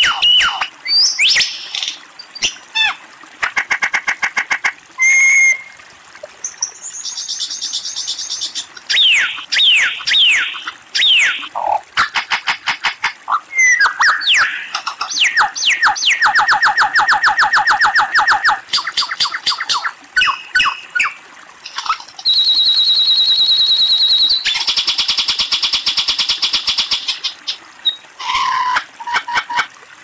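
Superb lyrebird singing a long, varied song: loud whistled notes and falling glides alternating with fast runs of rapidly repeated notes and buzzy trills, phrase after phrase with short gaps.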